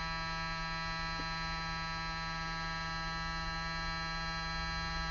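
Small handheld electric adhesive-removal tool running steadily, its motor spinning a thin metal rod against the iPhone 8 display panel to scrub off the old glue. It makes an even-pitched electric hum.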